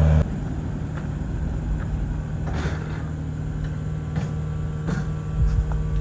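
Heavy equipment engine running steadily at an even pitch, with a few faint clicks. A louder low rumble cuts off just after the start.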